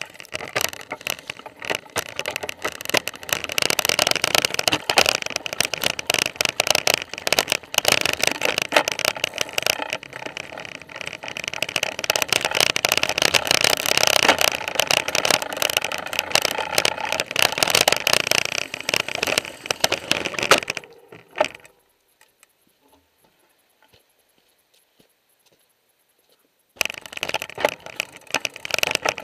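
Kona Abracadabra mountain bike rattling and clattering over a rocky trail, heard through a camera mounted on its frame: a dense, constant chatter of clicks and knocks from the chain, suspension and tyres on rock. The rattling drops out almost entirely for about five seconds near the end, then starts again.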